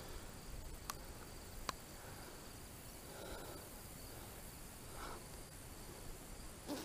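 Quiet outdoor ambience with a faint, steady, high insect trill, with two faint clicks about one and two seconds in.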